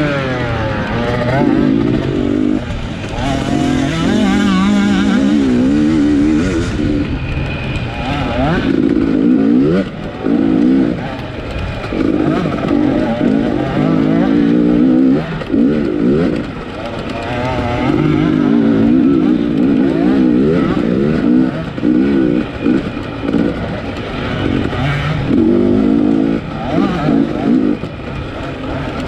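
Race dirt bike engine on a 250-class motorcycle revving up and falling back again and again, with short drops every few seconds as the throttle is chopped and opened.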